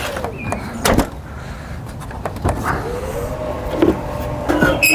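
Clicks, knocks and rattles of a Volvo XC90's plastic rear bumper cover being worked loose from the car, with a faint creak about three seconds in. A short pitched beep-like tone sounds at the very end.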